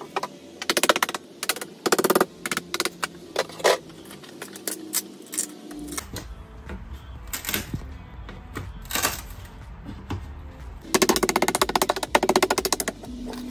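Background music, broken by short bursts of rapid rattling clicks as the mesh insert panel of a wooden cabinet door is worked loose with a metal hand tool. Two brief bursts come early, and a longer, louder one comes near the end.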